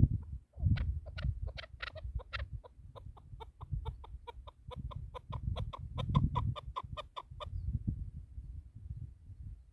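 Chukar partridge calling: a run of short clucking notes, a few louder ones first, then an even series of about three to four a second that stops suddenly near the end. Low rumble of wind or handling noise underneath.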